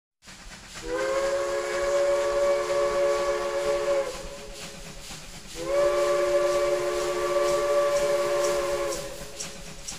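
Steam locomotive whistle blowing two long blasts of about three seconds each, sounding a chord of several notes, over a steady hiss of steam.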